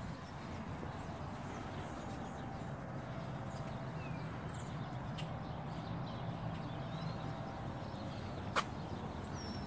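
Outdoor ambience: a steady low hum with a few faint bird chirps, and one sharp click near the end.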